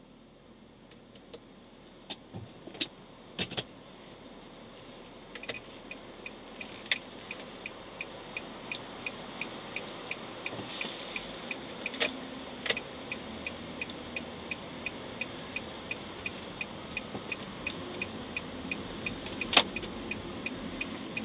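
Inside a moving car, engine and road noise rise steadily as it gathers speed. From about five seconds in, a turn-signal indicator ticks evenly, two to three ticks a second. There are a few sharp clicks about two to three seconds in and one loud knock near the end.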